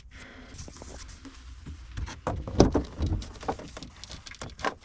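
Irregular knocks, taps and scrapes of a ceiling panel being handled and fitted into place. The loudest knock comes about two and a half seconds in.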